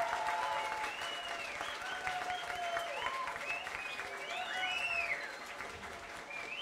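Wedding guests applauding the bride and groom's first kiss, with cheers and whoops rising over the clapping.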